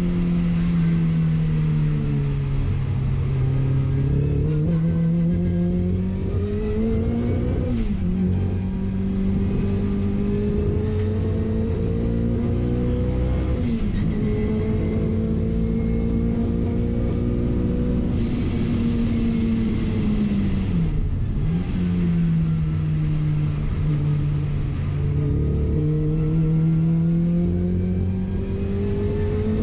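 Car engine heard on board, its revs climbing and falling several times as it is driven, with sharp drops about 8, 14 and 21 seconds in, over a steady road and wind rumble.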